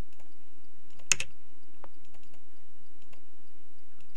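Scattered clicks of a computer mouse and keyboard, with one louder click about a second in, over a steady low hum.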